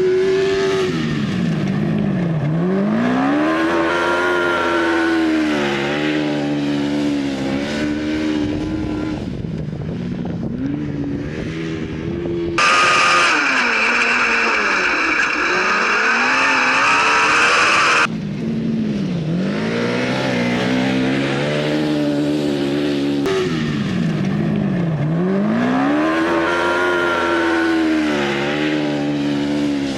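Off-road crosskart buggy engine revving hard, its pitch climbing and dropping back over and over as it accelerates and shifts. Partway through, a louder, higher and steadier engine note cuts in abruptly for a few seconds, then the rising and falling revs return.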